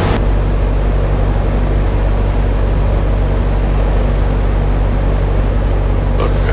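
Cessna 172's piston engine and propeller droning steadily, heard from inside the cabin during a landing approach.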